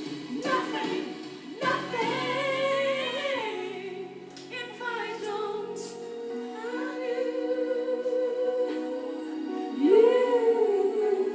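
A woman singing, holding long, gliding notes over a musical backing.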